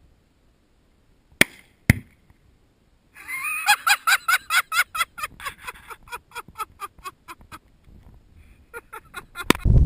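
Two sharp cracks, then a flock of geese honking in quick rhythmic calls, about four a second, fading away. Right at the end a sharp crack and the start of a heavy blast as the Tannerite-packed microwave explodes.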